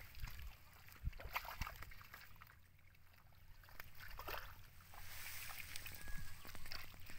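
Hands working in wet mud and muddy water, faint squelching and sloshing broken by a few short sharp clicks and wet smacks.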